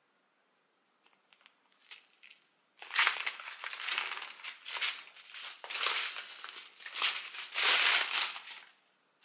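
Small plastic bags of diamond-painting resin drills crinkling as they are shuffled and sorted by hand. After a few faint ticks, the crinkling starts about three seconds in, runs loudly for about six seconds with several louder peaks, and stops shortly before the end.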